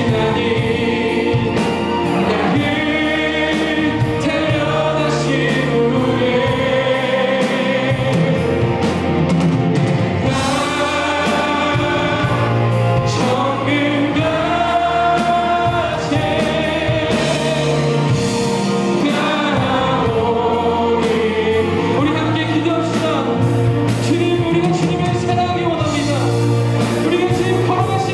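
Live Christian worship band playing a gospel-style song: several voices singing together over piano, keys, electric guitar, bass guitar and drums.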